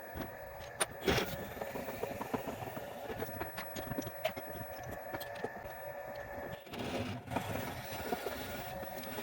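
A workshop machine running steadily with a constant whine while a black epoxy resin shift-knob blank is drilled and tapped for its mounting hole, with a few sharp clicks.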